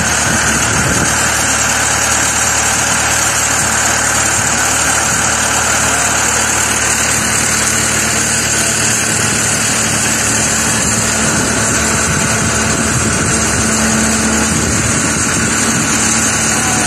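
Horizontal directional drilling rig's turbocharged diesel engine idling steadily.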